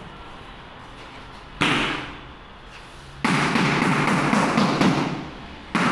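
Mallet tapping a large floor tile to bed it into the adhesive: a single knock about a second and a half in, then a run of rapid, close-spaced taps from about three seconds in.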